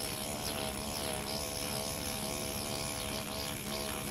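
Electric microneedling pen buzzing steadily as it is worked over the scalp, its pitch wavering slightly.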